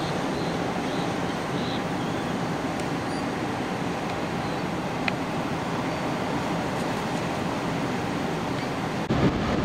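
Wind and surf from an approaching hurricane, a steady, even rushing noise. Near the end it turns louder and gustier.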